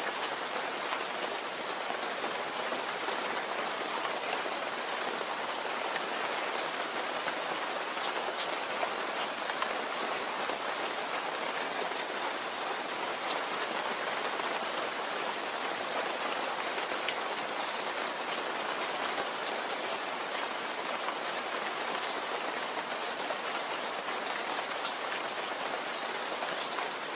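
Steady rain falling and pattering on a surface, with many fine drop ticks and no change in intensity.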